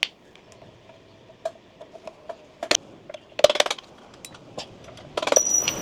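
Scattered metallic clicks and taps from hand tools working a pin out of the scooter's rear assembly. A louder scraping clatter with a thin high ring comes near the end.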